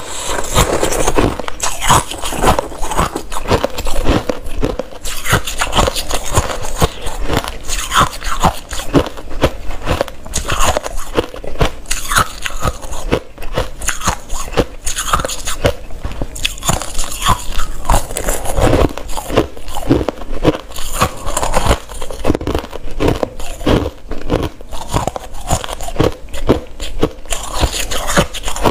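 A person biting and chewing chunks of white crushed ice: a dense, irregular run of sharp, loud crunches.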